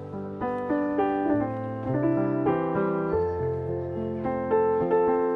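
Background piano music: a melody of single notes over held low notes.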